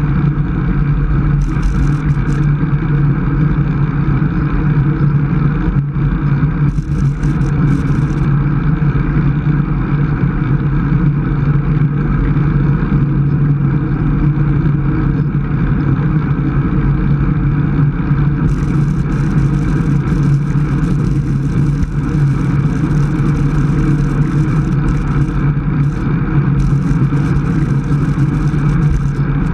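Steady rush of wind over a bicycle-mounted camera's microphone, with road and tyre noise, from a road bike riding at about 22 mph.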